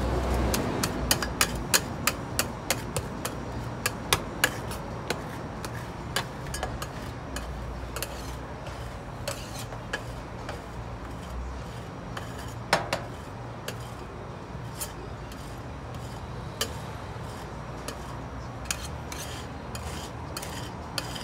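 Metal spatulas tapping, chopping and scraping on the chilled steel plate of a rolled-ice-cream griddle: sharp metallic clicks come quickly at first, then more spaced out, with one louder knock about two thirds of the way through.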